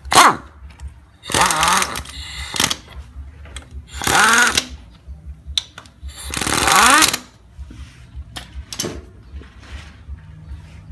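Small Honda single-cylinder four-stroke motorcycle engine running with a fast, even putter. It is revved up by hand about four times, each rev rising and falling in pitch. The engine is running again with its new timing chain fitted.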